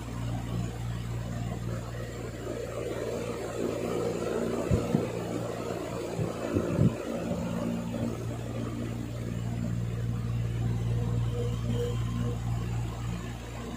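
Steady low whirring hum of a small motor, with a few dull thumps about five and seven seconds in.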